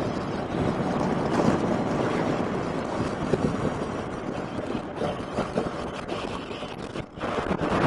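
Wind rushing over the rider's camera microphone with road noise from a BMW R1200GS Adventure motorcycle riding at speed; the noise drops briefly about seven seconds in.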